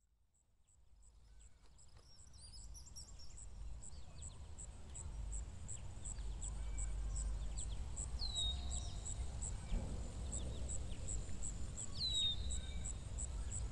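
Outdoor bird ambience fading in over a low rumble. Birds chirp, a very high call ticks about three times a second, and two clear whistles each drop in pitch and then hold, one past the middle and one near the end.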